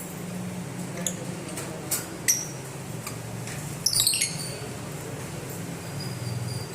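Lovebirds giving short, sharp high-pitched chirps: a few single ones, then a quick run of several about four seconds in, over a steady low hum.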